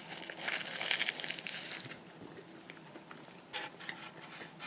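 Paper burger wrapper crinkling and rustling as the burger is handled in a styrofoam takeaway box. It is loudest in the first couple of seconds, then drops to faint rustles, with a few short crinkles near the end.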